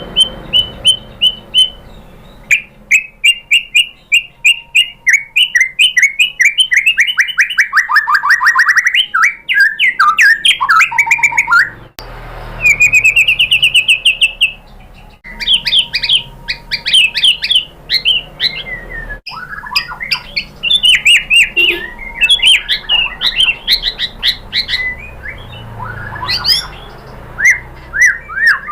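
White-rumped shama singing a fast, varied song of rapid repeated notes, trills and sliding whistles, the song breaking off abruptly and restarting a few times.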